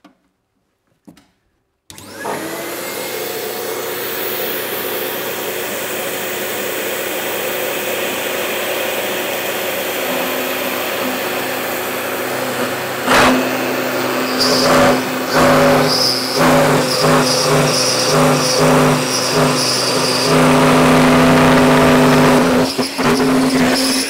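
Router table's router and dust-extraction vacuum switched on about two seconds in, spinning up with a rising whine, then running steadily. About halfway, a knock as the bit drops into the workpiece, then stop-start cutting as the frame piece is fed along the fence to rout a 6 mm wide, 10 mm deep dado, with a louder steady cut near the end.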